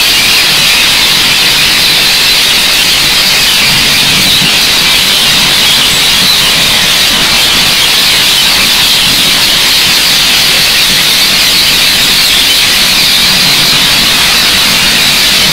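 A dense, unbroken din of a large flock of Alexandrine parakeets calling together at a roost, so many overlapping calls that they merge into one steady high-pitched wall of sound.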